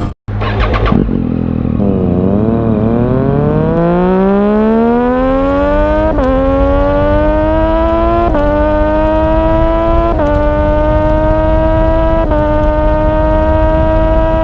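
Yamaha RX-King's two-stroke single-cylinder engine, freshly restored, accelerating and shifting up through the gears: the pitch climbs, dips briefly at each of four shifts about two seconds apart, and climbs again.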